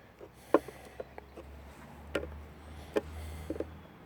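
Light, irregular knocks and clicks, about seven in four seconds, from a toothed steel timber connector and the timber it is fitted to being handled.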